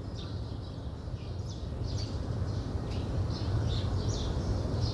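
Small birds chirping in many short, high calls over a steady low background rumble.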